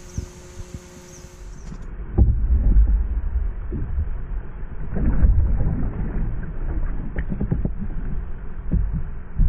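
Wind rumbling on a small camera's microphone aboard a kayak, starting about two seconds in, with a few light knocks and water sounds as the paddler moves about and reaches over the side.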